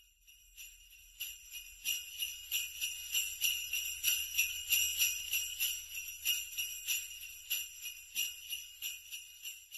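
Sleigh bells jingling in a steady rhythm, about three shakes a second, swelling in and fading out near the end.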